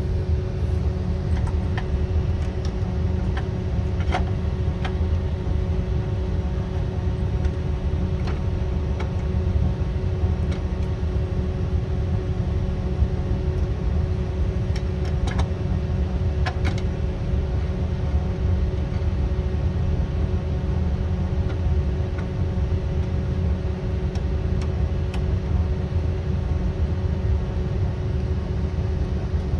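A steady low rumble with a constant hum, with a few faint clicks about 4 and 15 to 17 seconds in.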